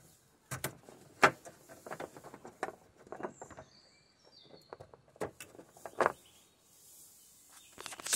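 Solar panel cables being handled and MC4-style plug connectors pushed together: a series of scattered sharp clicks and knocks with some rustling, the loudest about a second in.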